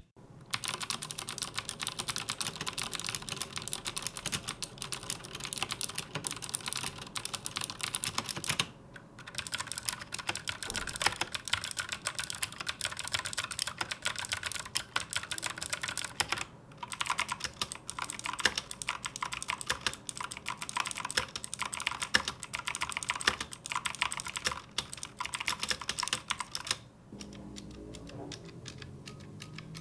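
Fast typing on a keyboard with clicky blue-type mechanical switches: a dense stream of sharp clicks. It breaks off briefly about nine seconds in and again around seventeen seconds, and from about 27 seconds the clicks become quieter and sparser.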